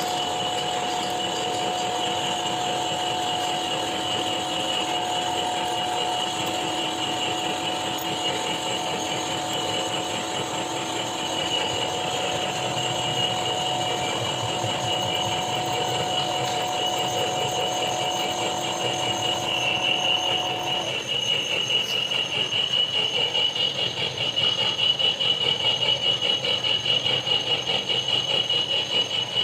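Machine tool running and cutting metal, with a steady high-pitched squeal. A lower tone in it stops about two-thirds of the way through, after which the sound pulses rapidly.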